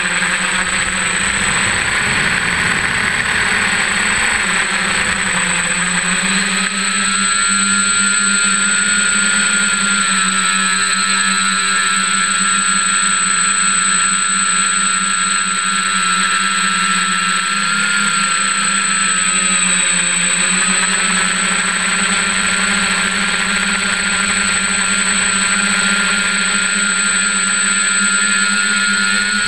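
The electric motors and propellers of an F550 hexacopter whirring steadily in flight, heard up close from the airframe. The whine shifts slightly up and down in pitch over a constant low drone, with a steady high tone above it.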